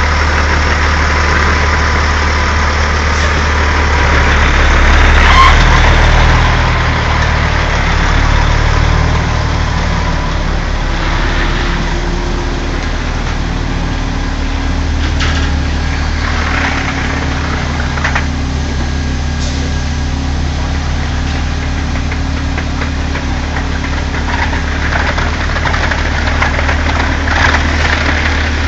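Semi truck's diesel engine running at low speed as the heavy rig creeps past, loudest about five seconds in and then easing slightly.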